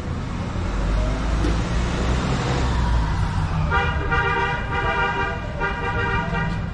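Street traffic: a vehicle passes with an engine rumble and tyre hiss. A little past halfway a vehicle horn starts blowing a steady, held note, with one brief break, until the end.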